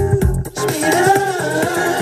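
Music playing loud through a car's custom audio system. About half a second in, the deep bass from the subwoofer drops out, leaving only the mids and highs playing.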